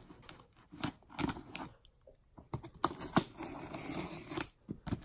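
The packing tape on a cardboard shipping box being slit open with a small handheld tool: a run of short, irregular scratches and ticks against the cardboard.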